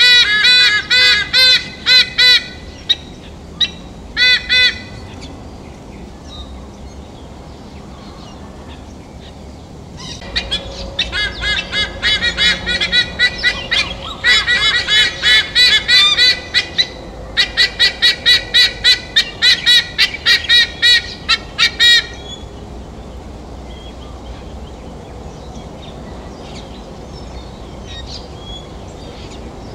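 White-bellied sea eagle calling its loud 'ark-ark-ark', quick even notes about four or five a second. A run at the start and a few single notes follow, then a long run from about ten seconds in to about twenty-two seconds in, broken twice briefly.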